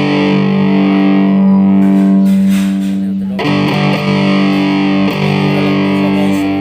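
Electric guitar played through a Deviser TG-30 practice amplifier on its crunch channel: distorted chords held and left to ring, struck again about halfway through.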